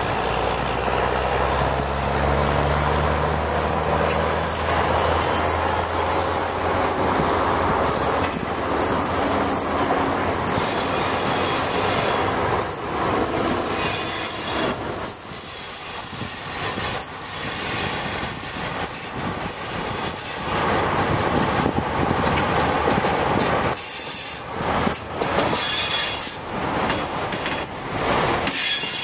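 Northwestern Pacific diesel locomotives rolling past at low speed, engines running, with wheels squealing on the rails.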